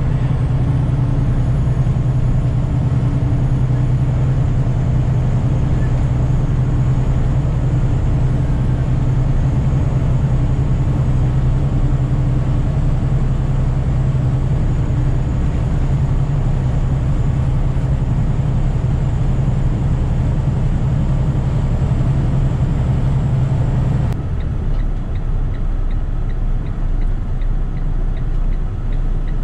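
Truck engine and road noise heard from inside the cab while driving, a steady low hum. About four-fifths of the way through, the sound changes abruptly and the strongest part of the hum drops away.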